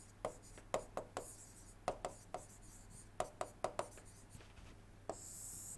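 Stylus writing on a tablet: a dozen or so faint, irregular ticks of the pen tip touching down and lifting between strokes, with a brief soft scratch near the end.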